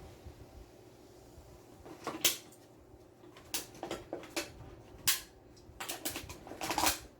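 Short clicks and rattles of objects being handled, in several brief bursts, as drink-making items are handled.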